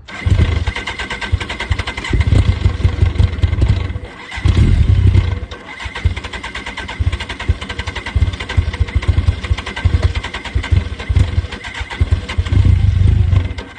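Trike engine being cranked and firing unevenly, surging and sagging without settling into an idle, then stopping near the end. It is being tried with the mass air flow sensor plugged in, which the owner says stops it starting; the cause is not yet known.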